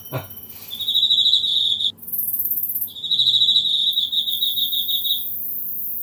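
Captive crickets and katydids singing at close range: a loud, rapidly pulsed cricket trill in two bursts, the first about a second long and the second about two seconds long, with a katydid's very high-pitched buzz that comes in about two seconds in and then carries on steadily.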